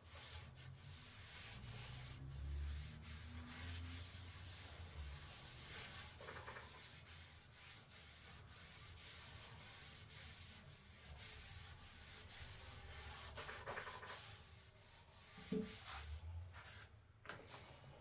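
Sandpaper rubbing back and forth over an oak board: a steady, faint, scratchy sanding sound.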